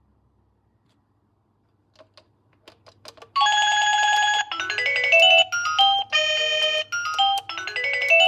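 Electronic doorbell chime playing a melody tune: a few faint clicks, then about three and a half seconds in a loud electronic tune starts, with quick rising runs of notes.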